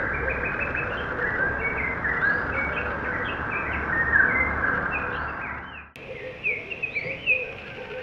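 A morning chorus of many wild birds chirping and calling over one another in quick, short rising and falling notes. About six seconds in the chorus drops off suddenly, and fewer, separate calls follow.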